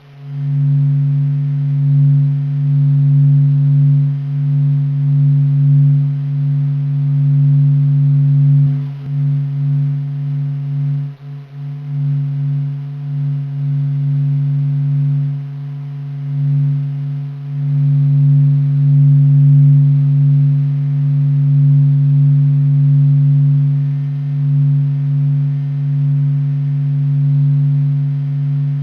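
NASA's sonification of the sun's surface oscillations: a steady low drone, a deep hum with a second tone above it and faint higher overtones, swelling and fading slowly, with brief dips about nine and eleven seconds in.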